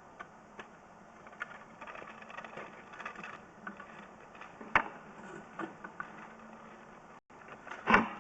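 Scattered clicks and rattles of equipment being handled, with two sharp knocks, the louder one near the end, over a steady low hum.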